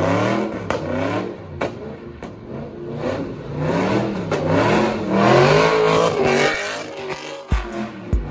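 Car engine revving up and down over and over, with a few sharp cracks between revs and a couple of deep thumps near the end.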